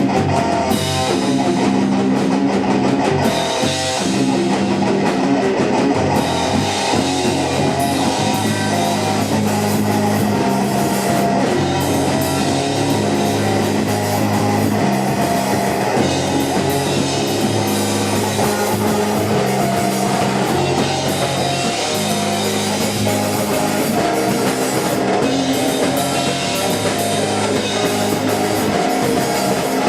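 Math rock / post-hardcore band playing live, with guitar and drum kit at a steady, loud level.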